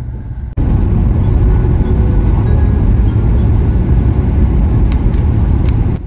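Loud, steady running rumble of a shinkansen train in a tunnel, heard from inside the passenger cabin. It jumps up suddenly about half a second in, after a quieter stretch.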